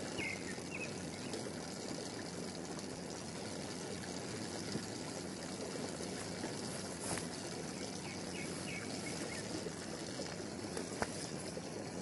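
Steady outdoor ambience: an even rushing noise with a few faint, short high chirps near the start and again after about eight seconds.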